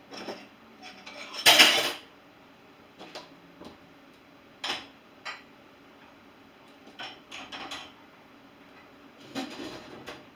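Dishes and cutlery clattering as a dishwasher is loaded: a run of separate knocks and clinks, the loudest and longest about a second and a half in.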